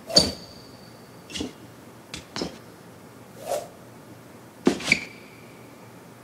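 Fencing blades clashing: about six sharp metallic strikes at uneven intervals, some ringing briefly, the loudest two just after the start and about five seconds in.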